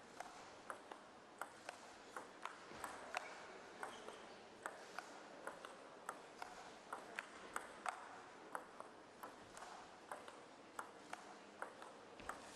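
Table tennis ball clicking off bats and table in a long rally: faint, sharp ticks, about two to three a second.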